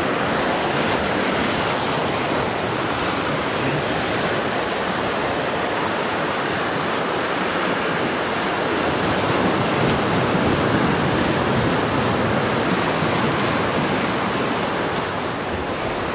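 Ocean surf breaking and washing against coastal rocks, a steady rush of water noise.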